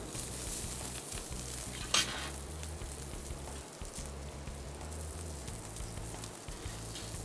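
Ribeye steak sizzling on a hot grill grate, a steady hiss over a low hum, with one sharp click about two seconds in.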